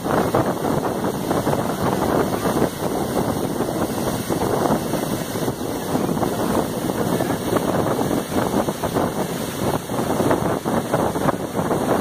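Waterfall pouring onto rock and into its plunge pool: a loud, steady rush of falling water and spray.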